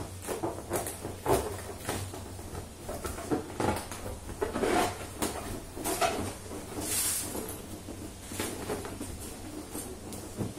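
Inflated latex balloons being handled, rubbing and squeaking against each other, with irregular rustles and knocks as the nozzles are twisted together.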